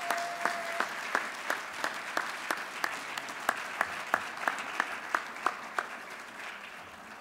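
Audience applauding, with one close clapper standing out at a steady pace of about three claps a second; the applause dies away near the end.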